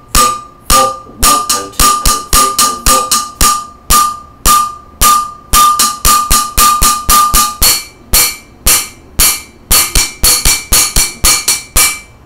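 Wooden drumsticks drumming on a stainless steel saucepan and lid, each metallic hit ringing. The rhythm moves between steady beats and quicker pairs of half beats. About eight seconds in the ringing note jumps higher as the sticks move to another part of the pan, and the hits come faster.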